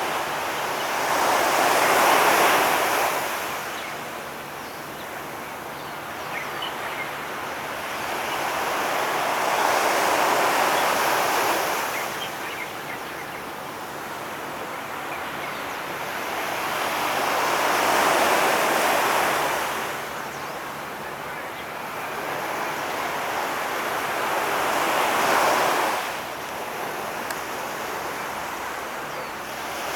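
Waves washing onto the shore: a rushing noise that swells and fades four times, about every eight seconds.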